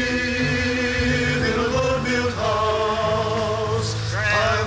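Background music: a song with long held sung notes that waver in pitch, over a steady accompaniment.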